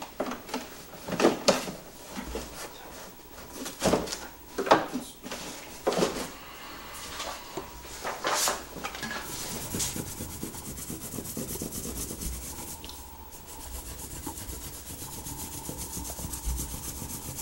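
Rustling and a few knocks of things being handled on wooden shelves. From about ten seconds in comes a fast, even scratching of back-and-forth colouring strokes on a drawing surface.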